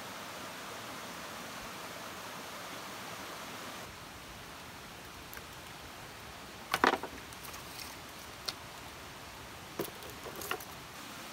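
Wood campfire burning under a bamboo grilling rack: a steady hiss with a few sharp snaps, the loudest a quick cluster about seven seconds in and smaller ones near the end.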